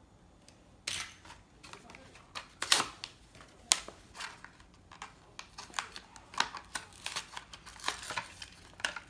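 Plastic blister pack and cardboard backing of a Hot Wheels car being pried and torn open by hand: an irregular run of sharp crackles and clicks that starts about a second in.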